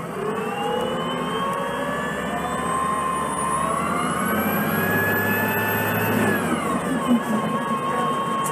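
Cummins C Gas Plus engine of a 2006 Orion VII CNG transit bus accelerating: the engine note and a high whine rise together for about six seconds, then drop in pitch and settle to a steady hum.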